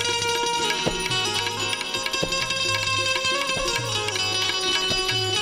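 Instrumental interlude of Gujarati devotional bhajan music: tabla drum strokes keep a steady rhythm under a sustained melody instrument that moves from note to note.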